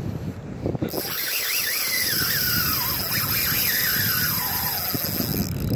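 Spinning reel's drag squealing as a just-hooked chinook salmon pulls line off: a steady high whine starting about a second in, with a wavering, slowly falling tone beneath it.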